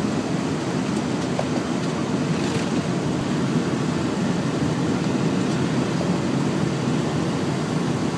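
Semi-truck cab at highway speed: steady low rumble of engine and road noise heard from inside the cab.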